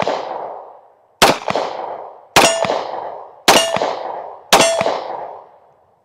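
FN 510 pistol firing 10mm rounds: four shots about a second apart, each ringing out and dying away over roughly a second.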